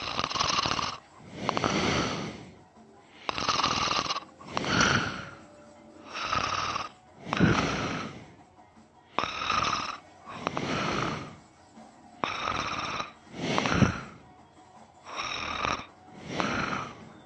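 A man snoring in his sleep: a steady rhythm of loud, rasping snores, mostly coming two close together about every three seconds.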